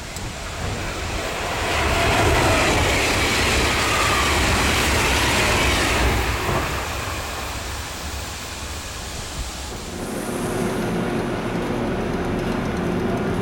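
Danish IC3 diesel multiple unit passing at speed: the rumble and rail noise build over about two seconds, stay loud for about four seconds, then fade. About ten seconds in it cuts to an IC3 rolling slowly along a platform, its diesel engines humming steadily, one tone rising near the end.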